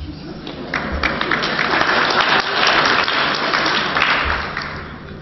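Audience applauding. The clapping swells about a second in and dies away near the end.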